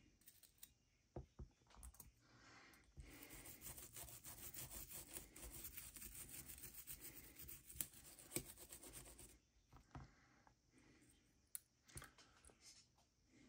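Faint scrubbing and rubbing on the metal parts of an out-the-front knife during cleaning, a steady scratchy stretch in the middle, with a few light clicks and taps of handling before and after.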